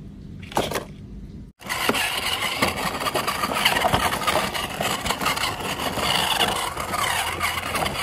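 Toy RC truck running over dirt: a dense, gritty crackling and scraping that starts abruptly about a second and a half in, after a brief quieter stretch.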